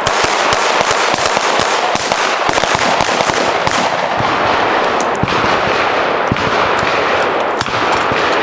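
Rapid, overlapping gunfire from several carbines and pistols firing at once along a firing line: many sharp cracks at irregular, close intervals, with no let-up.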